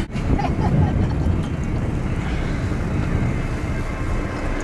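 Steady low rumble of a fishing boat's engine under way, with wind buffeting the microphone.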